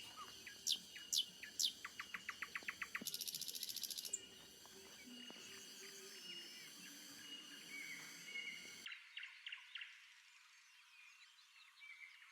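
Birds chirping and calling over a steady high drone of insects, with a rapid trill about two seconds in and a buzzy rattle just after. About nine seconds in, the sound switches abruptly to a thinner recording of scattered bird chirps.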